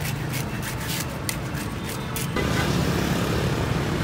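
A metal fish scaler scraping scales off a grouper in quick short strokes, several a second, over steady road traffic. A little over halfway through the scraping stops and louder traffic noise takes over.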